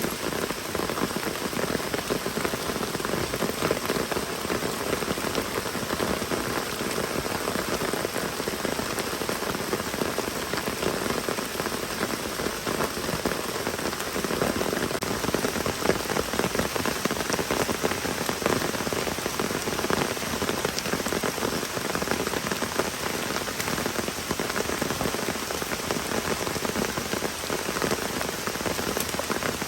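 Heavy rain falling steadily, with a dense spread of individual drops striking a surface close by.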